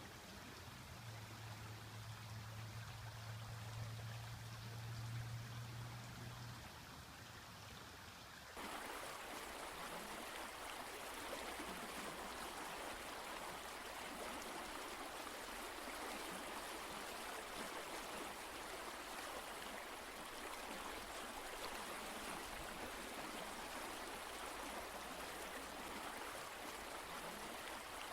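Steady rush of running water, starting abruptly about eight and a half seconds in. Before it, a fainter hiss with a low steady hum lasting several seconds.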